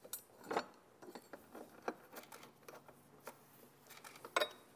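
Scattered light clicks and taps of metal fasteners being handled and tightened by hand on an aluminium mounting plate, with sharper taps about half a second in and near the end.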